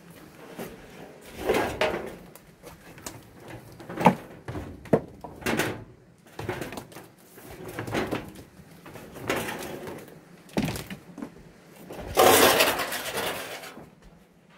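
Handling noise from a yellow extension cord being gathered in loops and dragged over concrete: scattered knocks, scrapes and rustles with footsteps, and a longer, louder rustle near the end.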